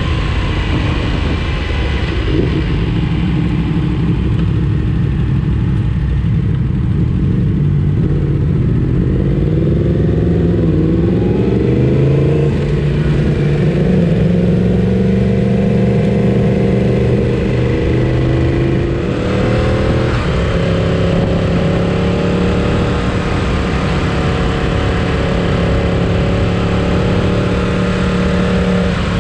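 Sport motorcycle engine pulling under acceleration, its pitch climbing over several seconds about a third of the way in, dipping briefly, then holding steady at cruising speed, over a steady rush of wind noise.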